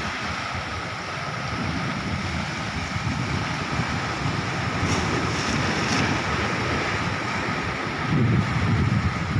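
Sea surf washing steadily, with wind buffeting the microphone in a low, gusty rumble.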